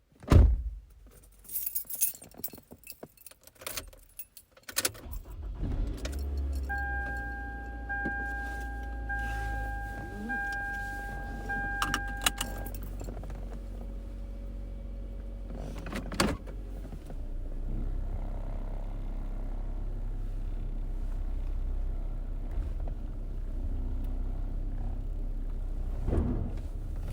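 Inside a car: a loud thump and keys jangling and rattling, then the engine starts about five seconds in and settles into a steady low running rumble in the cabin. A dashboard warning chime beeps about five times in a row soon after the start, and another knock comes about halfway through.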